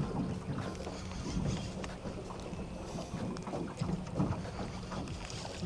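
Wind buffeting the microphone over water sounds around a small boat, with a steady low hum and scattered small ticks.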